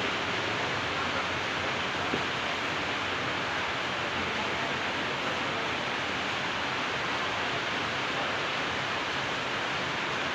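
A steady, even hiss with no changes in it and no speech.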